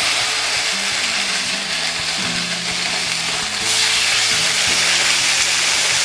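Marinated swordfish steaks sizzling on a griddle (plancha) turned up to full heat with a little oil. The sizzle gets louder about three and a half seconds in, as the second steak goes down on the hot plate.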